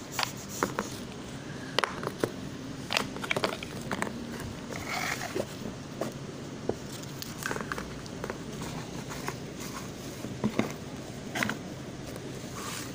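Irregular light clicks and taps of plastic doll furniture and a doll being handled and set down on a plastic dollhouse floor, over a steady low background hum.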